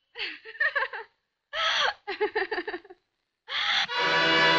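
Short vocal sounds, breathy exclamations and laughs, for the first three seconds. Then, just before the end, a loud, steady buzzing tone with many overtones starts.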